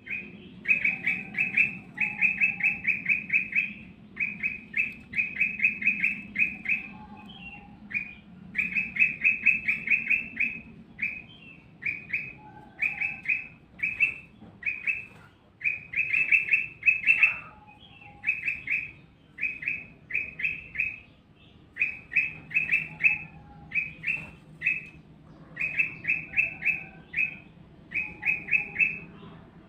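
A tilang emas songbird singing nonstop: fast runs of sharp, high chirps, about eight a second, in bursts of one to two seconds with short breaks between them, over a faint low hum.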